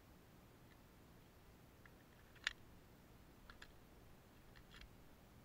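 Near silence with a few faint, short clicks from handling a Glock 43 pistol, the loudest about two and a half seconds in.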